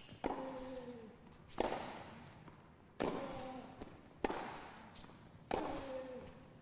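Tennis rally with five racket strikes on the ball, about one every 1.3 seconds. Most strikes are followed by a short grunt from the hitting player that falls in pitch.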